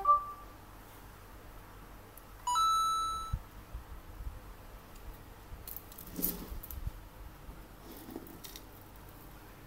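A short electronic beep from an Android tablet as it reads a tapped NFC tag. About two and a half seconds in comes a longer electronic tone that steps up in pitch and fades away over about a second, followed by a few faint handling knocks.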